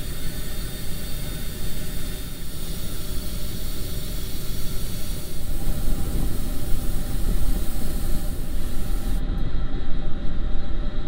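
Airbrush spraying paint with a steady hiss over a steady low rumble; the hiss cuts off about nine seconds in.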